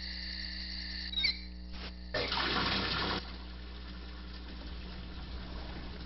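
Suspense sound design over a dark house: a low steady hum under everything and a high steady tone that cuts off after about a second. A click follows, then a rush of noise like running water for about a second.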